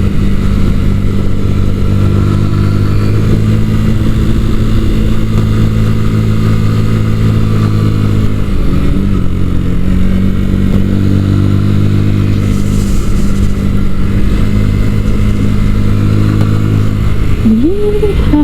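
Sinnis Akuma 125cc single-cylinder motorcycle engine running at steady cruising revs, with a brief dip and recovery in revs about eight or nine seconds in.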